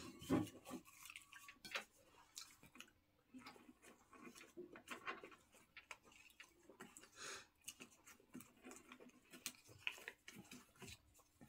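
Faint, irregular clicks and taps of two people eating from plates with their hands, fingers and food knocking on the plates, over a nearly silent room.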